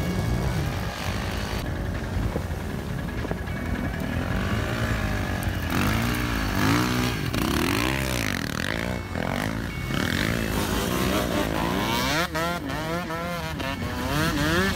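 Several off-road motorcycles and quad bikes revving as they pull away through soft sand, their engine notes rising and falling in pitch again and again.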